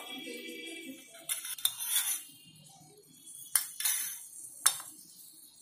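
Steel spoon clinking against a small metal pan and a steel dhokla tray while a thin tempering syrup is spooned over the dhokla. The clinks are sharp and come irregularly, several times.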